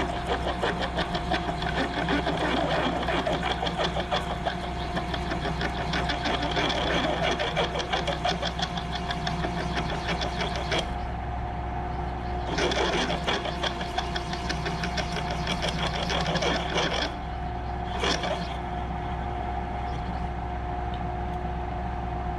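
Drill press running with a 13/16-inch drill bit cutting through a metal T-nut, a rapid chattering rasp over the motor's steady hum. The cutting stops about eleven seconds in, comes back for about four seconds, then once more briefly, while the motor keeps running.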